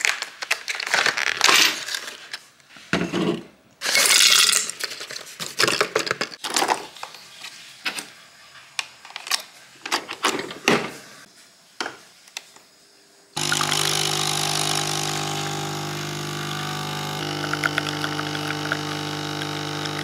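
Clicking and rattling of aluminium coffee capsules being handled and a capsule machine being loaded, then about two-thirds of the way in the capsule espresso machine's pump starts with a sudden steady hum as the coffee pours, its tone shifting slightly near the end.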